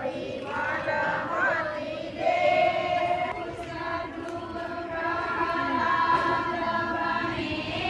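A large group of children and women singing a prayer together in unison, with long held notes.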